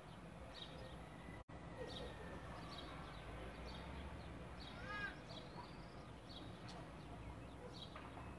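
Faint birds calling: short high chirps repeating every half second or so, with one louder, harsher call about five seconds in, over a low steady rumble.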